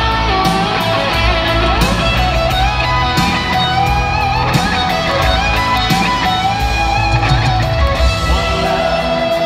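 Live country-rock band playing an instrumental passage: an electric guitar carries a bending lead line over drums and bass.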